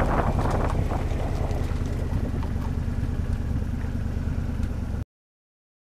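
Twin-turbo Ford Ranger driving on a wet road: a steady low engine and exhaust drone with road and wind noise that slowly fades as the truck eases off. The sound cuts off suddenly about five seconds in.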